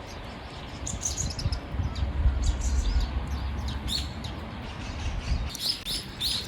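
Small songbirds chirping in short, high calls, scattered at first, then a quick run of three calls near the end, over a low rumble.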